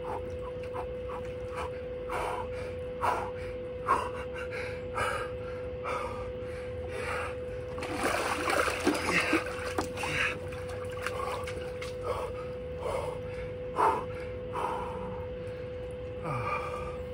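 Cold water in a 100-gallon plastic stock tank splashing as the man sitting in it slaps at it with his hand, most heavily about 8 to 10 seconds in, with drips and his breathing in between. A steady hum runs underneath.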